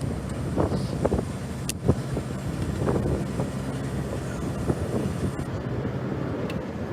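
Wind buffeting the microphone in gusts, a dense fluttering rumble, with a few short knocks.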